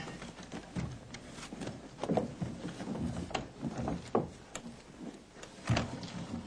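Irregular wooden knocks and clatter of things being rummaged through in a wooden chest, with a few louder knocks about two seconds in and again near the end.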